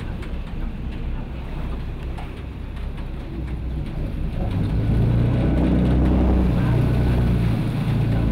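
River shuttle boat's engine running, a steady low hum that grows louder about halfway through.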